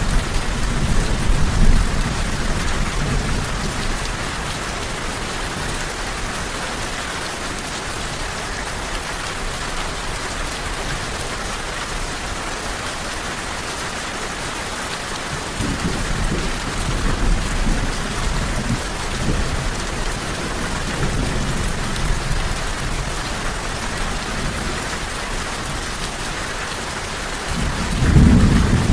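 Steady rain falling, an even hiss, with low rolling thunder swelling near the start, again about halfway through, and once more near the end.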